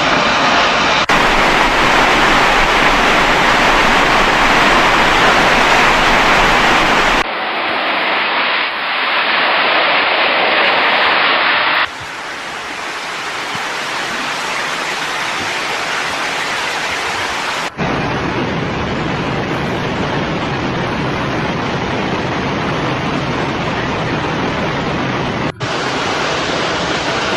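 Rushing floodwater, a loud steady noise over several spliced clips, changing abruptly at cuts about 1, 7, 12, 18 and 26 seconds in.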